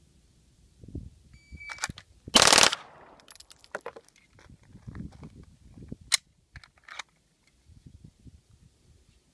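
A shot-timer beep, then about a second later a Glock 18 fires one rapid full-auto burst of 9mm rounds, its six shots running together in under half a second. A sharp click comes a few seconds later, over the crunch of footsteps on gravel.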